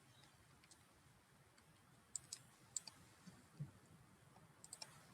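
Near silence: quiet room tone with a few faint, sharp clicks in small groups from about two seconds in, from working a computer's mouse and keys.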